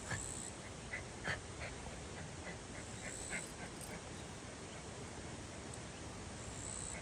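Shiba Inu giving a few short, high whimpers in the first few seconds, over a steady background hiss.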